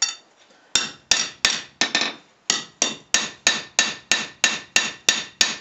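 Hand hammer striking a 1084 steel knife blank on an anvil, about fourteen ringing blows at roughly three a second with a short pause about two seconds in. The steel is at a very low red heat.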